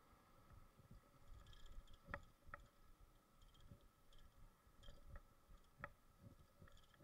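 Faint clicks and knocks from a riding bicycle and its mounted camera rattling over the road, over a low rumble, near silence overall. A pair of sharper clicks comes about two seconds in and more about five and six seconds in.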